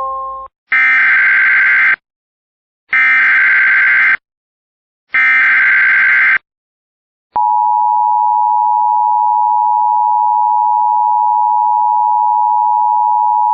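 Emergency Alert System header: three short, roughly one-second bursts of buzzy digital data tones with pauses between them. About seven seconds in comes the steady, loud two-tone attention signal, which keeps going. Together they mark the start of a new EAS alert, a flash flood warning.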